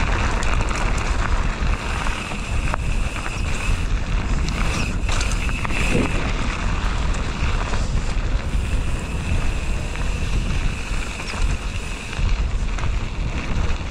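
Wind rushing over an action camera's microphone on a moving mountain bike, over the steady rumble of tyres rolling on a gravel road.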